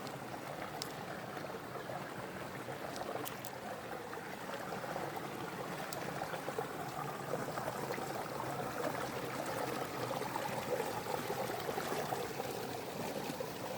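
Small forest creek running over mossy rocks, a steady rush of water that grows a little fuller after about five seconds.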